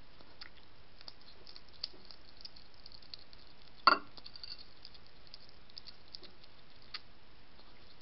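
European hedgehog eating dry kibble from a ceramic plate: scattered small crunches and clicks, with one much louder sharp double click about four seconds in, over a steady hiss.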